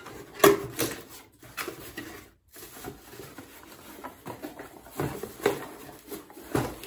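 Handling noises: scattered knocks, clicks and rustling as headlight parts and their packaging are moved about, with sharper knocks about half a second in and again near the end.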